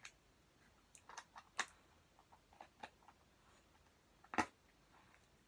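A small plastic slime pot handled in the hands: a few faint clicks and taps, then one louder click about four seconds in.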